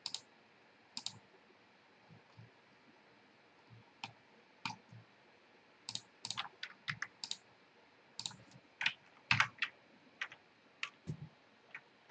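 Computer mouse and keyboard clicks at a desk: a few scattered clicks, then quicker runs of clicks from about halfway through.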